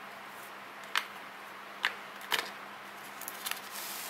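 Small objects being picked up and set down on a desk: three light clicks, then a soft crinkle of a plastic anti-static bag being handled near the end.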